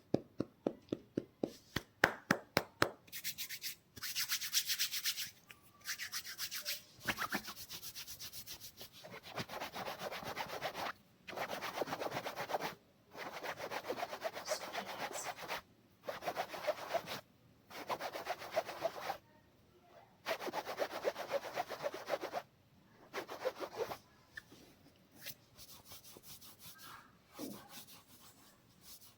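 Hands massaging the scalp through oiled hair, close up: a run of quick sharp strokes, then fast rubbing and scratching in bursts of one to two seconds with short pauses between, growing fainter near the end.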